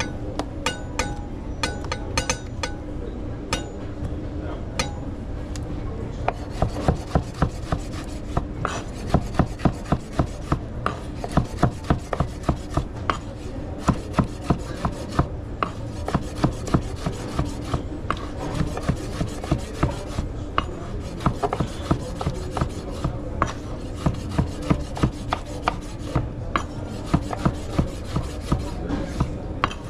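A few light clinks, then steady rhythmic scraping strokes of a kitchen utensil, about two to three a second.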